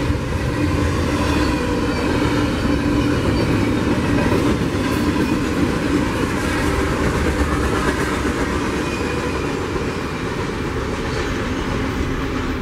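Double-stack intermodal container train passing, its steel wheels rumbling along the rails; the sound eases off slightly near the end as the last well cars go by.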